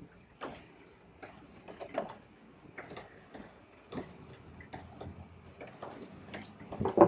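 Scattered small clicks and taps of hands handling wiring parts, irregular and light, with one louder knock just before the end.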